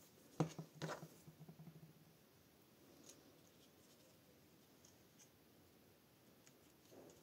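Faint handling of small paper pieces on a papercraft lid: a few light clicks and paper rustles in the first second or two, then near silence with scattered faint ticks as a thin metal tool presses paper grass into place.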